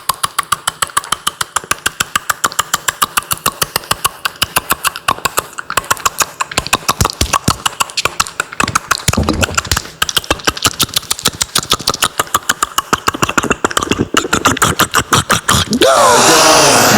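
Beatboxer imitating a ping-pong rally with the mouth: a rapid train of sharp clicks and pops, several a second, with a brief break midway. Music comes in near the end.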